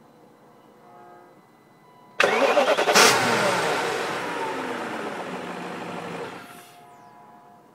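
Car engine starting suddenly about two seconds in, loudest a second later, then falling in pitch as it winds down before cutting off about four seconds after it started.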